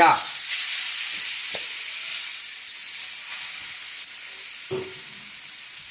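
Marinated sliced lamb hitting hot oil in a wok and sizzling, a steady hiss that starts suddenly and eases slightly. A couple of faint knocks come from the spatula as the meat is stir-fried.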